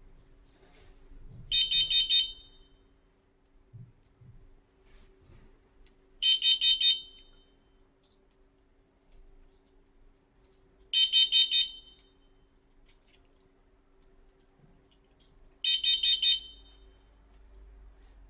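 Aziz carbon monoxide alarm sounding in groups of four quick, loud, high-pitched beeps that repeat about every five seconds. This is the standard carbon monoxide warning pattern: the alarm has been set off during the test.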